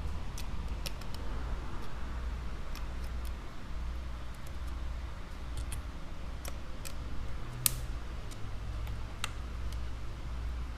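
Scattered small clicks and taps from an iPad and its parts being handled during a screen repair, with one sharper click about three-quarters of the way through, over a steady low hum.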